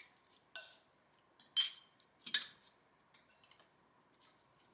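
Cutlery clinking against dishes: three sharp clinks, the loudest about a second and a half in with a brief ring, followed by a few faint ticks.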